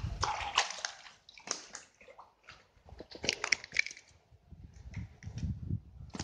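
Water sloshing and splashing as an arm reaches into the water, with scattered sharp knocks and clatters, and a low rumbling splash noise near the end.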